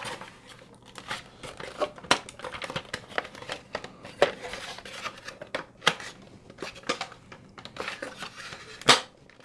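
Hard plastic toy airship parts being handled and pressed together: scattered clicks and knocks with some crinkling between them. The sharpest click comes near the end.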